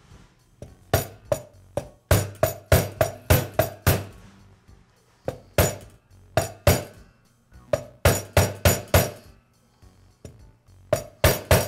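A mallet striking a socket to drive a new ball bearing onto a saw motor's armature shaft: sharp metallic taps with a short ring, in bursts of quick blows, fastest about four a second.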